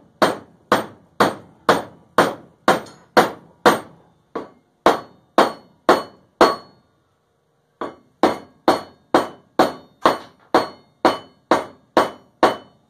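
Hammer blows driving a step wedge down into the top of a wooden hammer handle, wedging the forged head tight on the handle. About two sharp strikes a second with a short ring after each, and a pause of about a second just past the middle.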